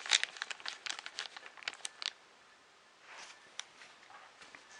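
Plastic wrapping crinkling as it is handled: a dense run of crackles over the first two seconds, then fainter rustling and a single click.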